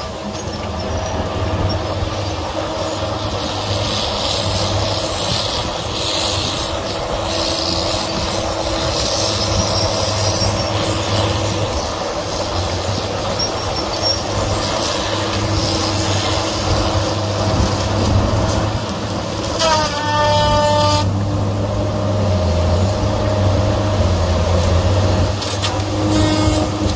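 A heavy diesel machine running steadily under load, with a deep engine hum and a constant whine. About two-thirds of the way in, a single pitched squeal or horn-like tone lasts about a second, and a shorter one comes near the end.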